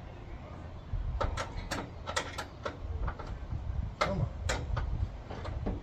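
Irregular metallic clicks and taps of a wrench working on a stripped battery hold-down bolt in a car's engine bay, about ten in all, over a low steady rumble.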